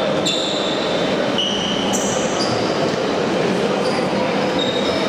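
Athletes' shoes squeaking on an indoor court floor: a string of short, high squeaks at shifting pitches over steady hall noise.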